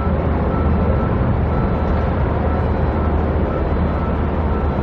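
Steady low engine rumble, with a faint thin high whine coming and going.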